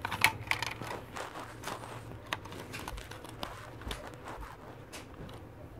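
Irregular plastic clicks and taps of a CD being handled in its jewel case, fingers working the disc on the centre hub, over a low steady hum.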